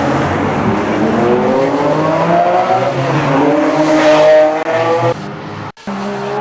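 Dubbed-in car engine sound effect revving up, its pitch climbing over several seconds. It breaks off abruptly about five seconds in, and a steadier engine sound starts near the end.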